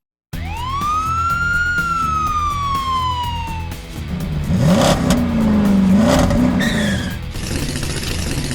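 A siren-like wail that rises quickly, then slides slowly down over about two seconds, played over background music with a steady low beat. About halfway through, a wobbling engine-rev sound effect follows, then a short falling two-note tone and a hiss near the end.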